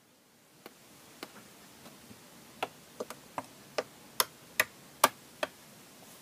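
A series of small, sharp clicks or taps, a few scattered at first and then about two or three a second, growing louder toward the end.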